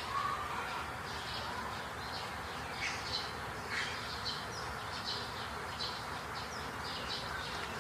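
Birds chirping in short, irregular calls, several a second at times, over a steady background hiss.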